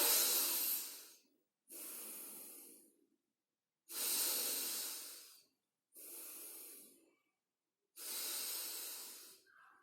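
A man doing bhastrika pranayama: forceful, deep breaths through the nose, five in all, about one every two seconds. The breaths alternate louder and softer.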